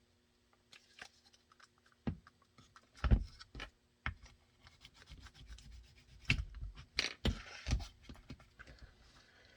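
Workbench handling sounds as holster blocking pieces are set on a mold: scattered light knocks and taps with some rubbing. The clearest knocks come about three seconds in and again between six and eight seconds in.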